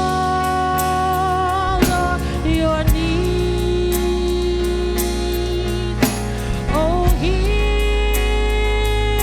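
Gospel worship music: long held, sung notes with vibrato over a band with bass and drums.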